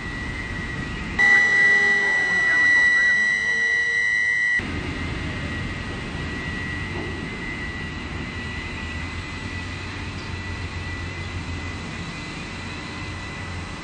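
Tandem ship-to-shore container crane at work, heard from the operator's cab: a steady high electric whine over a low hum and rumble. About a second in, a louder whine of several tones starts, and it cuts off suddenly about three seconds later.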